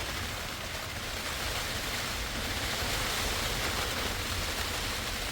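Steady hiss of heavy rain and wind, with low rumbling of wind buffeting the microphone.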